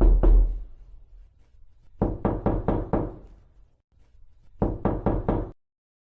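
Knuckles knocking on a wooden door: two knocks at the start, a quick run of about five knocks two seconds in, then about four more near the end.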